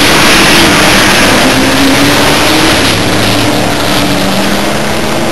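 Race cars' V8 engines running at speed along the circuit, very loud, the engine note sliding slowly down as the cars go by.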